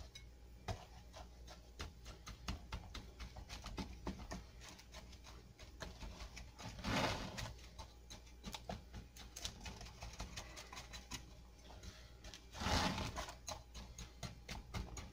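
Quarter-cup measuring cup tamping a graham cracker crumb crust into a springform pan: many light taps and clicks, with two louder scraping, crunching pushes about 7 seconds in and near the end.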